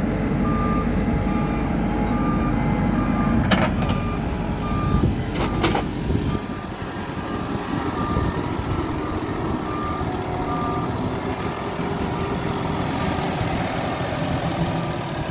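Hidromek 102B backhoe loader's diesel engine working, with its reversing alarm beeping about twice a second. There are two sharp knocks about three and a half and five and a half seconds in. The engine's heavy rumble then eases off, and the beeping fades away a little after two-thirds of the way through.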